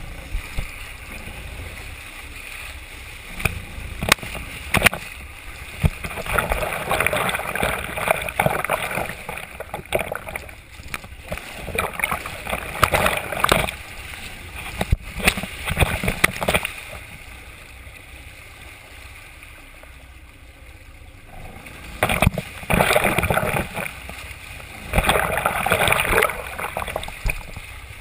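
Sportfishing boat at sea: water rushing and splashing along the hull in surges every few seconds over a steady low engine rumble, with a few sharp knocks.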